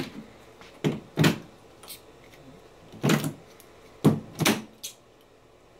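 Civic Hybrid battery module knocked several times against the edge of a wooden workbench to pop its plastic end cover off: a series of sharp knocks spread across the stretch.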